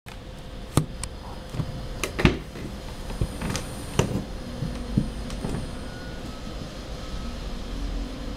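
French bulldog snoring in its sleep over a steady low hum, with several sharp knocks in the first five seconds, the loudest about two seconds in.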